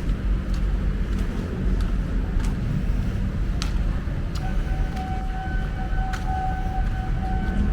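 Steady low rumble of a vehicle, with a few light clicks. A steady high-pitched tone sets in a little past halfway and holds.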